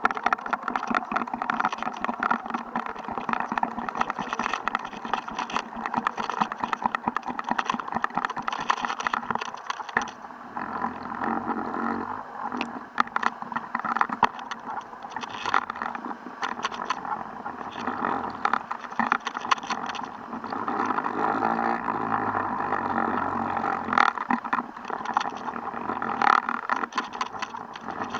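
Muffled underwater noise recorded by an action camera on a fishing line at about 30 m depth: a steady hum with constant crackling clicks, and a low rumble added in the middle.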